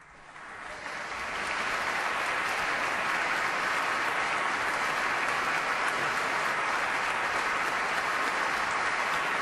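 Concert audience applauding: the clapping builds over the first second and a half, then stays steady and dense.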